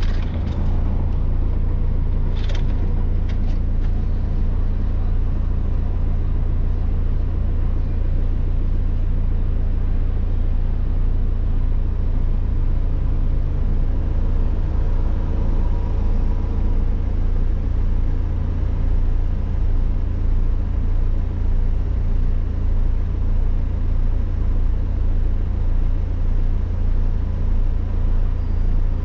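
Car engine idling while stopped, heard from inside the cabin as a steady low hum. A few brief clicks about two and a half seconds in.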